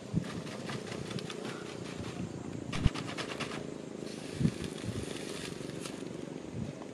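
Dry thatch and bamboo rustling and crackling as hands grope through a hut roof searching for geckos, with a sharp knock about three seconds in.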